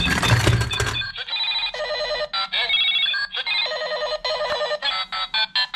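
Toy walkie-talkie playing its electronic sound effects: a burst of noise in the first second, then rapid ringtone-like beeps and warbling electronic tones in short, quick bursts.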